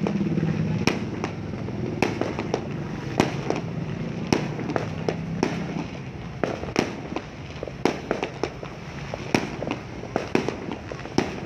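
Fireworks going off in an irregular string of sharp bangs and pops, several a second.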